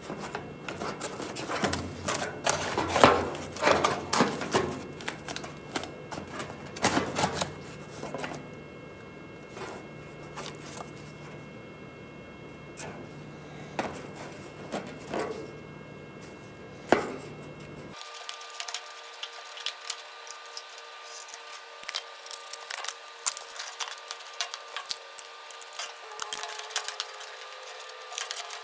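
Irregular knocks, clinks and scraping of hand tools working on car body metal. About two-thirds of the way through, the sound changes abruptly to a thinner run of light, rapid ticking.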